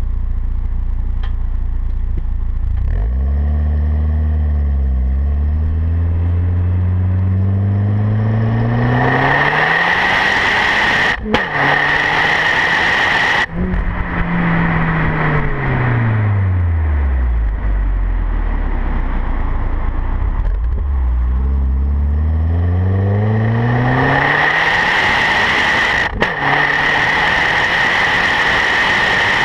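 Exhaust of a Skoda Octavia's 1.8-litre turbocharged four-cylinder engine through a straight-through muffler taken from a SAAB 9000 2.3t, heard close at the tailpipe on the move. It rises in pitch as the car accelerates, drops away about halfway through, then rises again, with a hiss of wind and road noise at the faster stretches.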